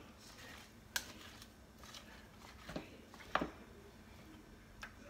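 A few light clicks and knocks, about four, spread across a few seconds, from kitchenware being handled while more vegetable broth is about to go into the crock pot.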